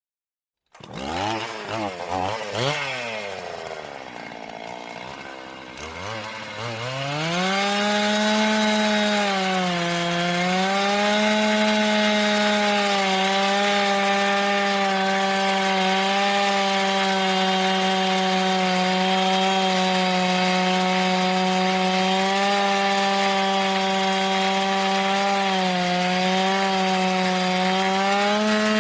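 Gasoline chainsaw starting up about a second in and revving, its pitch swooping up and down, then running at a high steady speed from about seven seconds in, with two brief dips in pitch.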